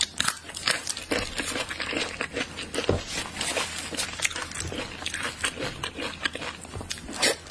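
Close-miked wet chewing, lip-smacking and slurping of someone eating saucy Chinese blood sausage by hand, a dense run of quick smacks and clicks.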